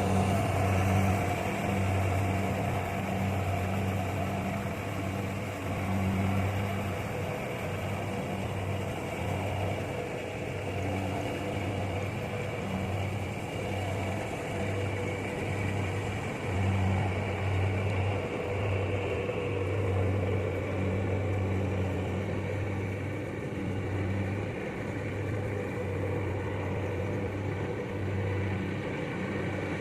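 Kubota rice combine harvester's diesel engine running steadily while it harvests. It makes a low drone that grows stronger and weaker over the stretch, over a steady mechanical hum.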